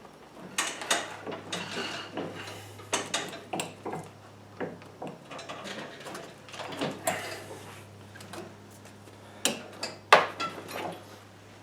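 Irregular clicks, knocks and rattles of a rear bagger's lower chute and its bungee cord and hooks being stretched and worked into place, with the sharpest knock about ten seconds in. A faint steady low hum lies underneath.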